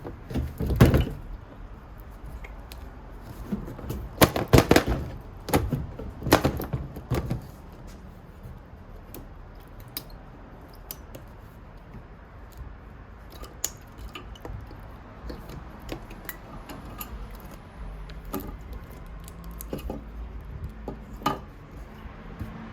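Knocks, clunks and light rattles of an aluminum iMac's metal and plastic internal parts being handled, as the power plug inside is wiggled to work it free. The loudest clusters of knocks come in the first several seconds, followed by scattered light clicks.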